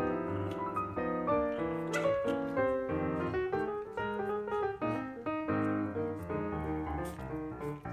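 Background piano music: a continuous run of notes at a steady level.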